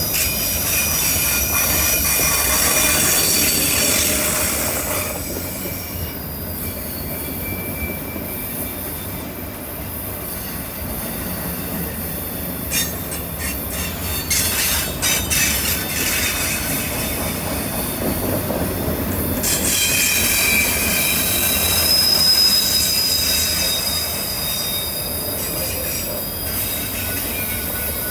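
Freight train of autorack cars rolling slowly through a curve: steady rumble of the wheels, with the flanges squealing against the rail in thin high tones that fade about five seconds in and come back strongly around twenty seconds in. A run of sharp clicks about halfway through.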